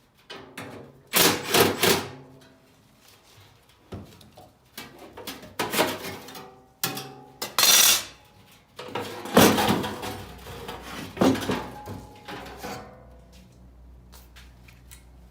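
Metal HVAC blower parts being handled: a run of irregular clanks, knocks and scrapes, several with a brief metallic ring, easing off toward the end.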